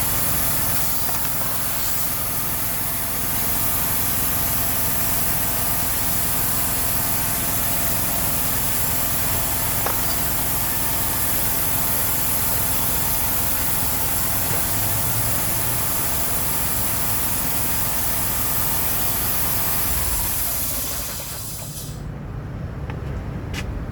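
Compressed air hissing steadily from an air hose as a punctured car tire is inflated after a roadside plug repair, over the steady hum of an engine running. The hiss stops abruptly near the end, followed by a few sharp clicks.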